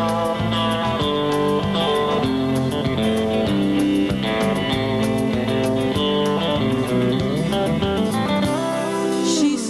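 Live band's instrumental break between sung verses: two electric guitars playing over drums, with a steady cymbal beat.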